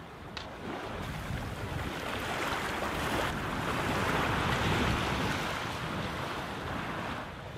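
Sea water rushing and splashing along the hull of a sailboat under way, with wind buffeting the microphone; the rush swells louder in the middle and eases off near the end.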